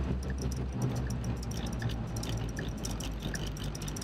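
Road and engine rumble heard inside a vehicle's cab as it slows onto the highway shoulder, with a light regular ticking, the turn signal clicking.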